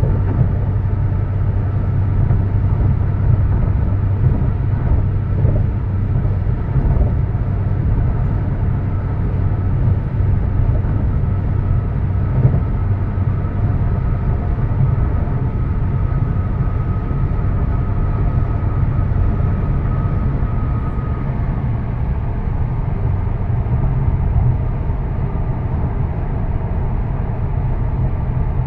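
Steady low road and engine rumble of a car cruising at highway speed, with a faint high whine through the middle.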